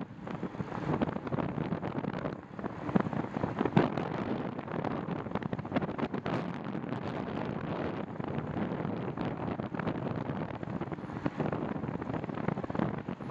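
Wind buffeting the microphone of a handlebar-mounted camera on a moving bicycle: a steady, gusty rush, with a couple of sharp knocks about three to four seconds in.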